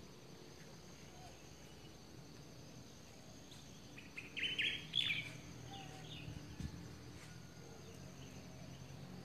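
Steady outdoor insect drone with a thin high whine, and a brief flurry of high small-bird chirps about four to five seconds in.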